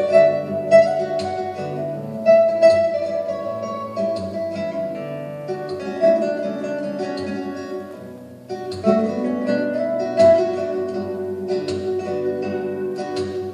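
Instrumental music, with sharply struck notes over sustained tones. It dips quieter about eight seconds in, then swells back up.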